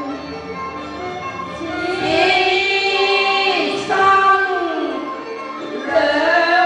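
Cantonese opera singing with music: long held notes that bend up and down in pitch.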